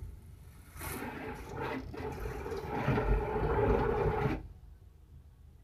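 Car-wash water jets spraying onto the car, heard from inside the cabin as a rushing hiss over a low rumble; the spray cuts off suddenly about four seconds in.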